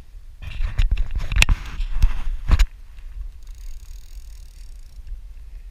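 Handling noise on the camera as its broken mount gives way: a run of sharp clicks, knocks and rubbing for about two seconds, with the loudest knocks near the middle, then quieter.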